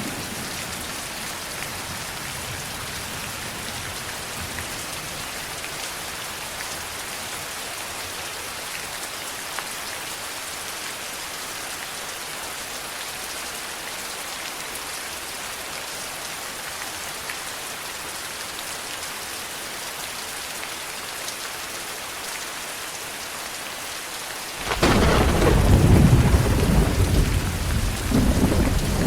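Steady heavy rain hissing, then a sudden loud rumble of thunder near the end that rolls on for several seconds.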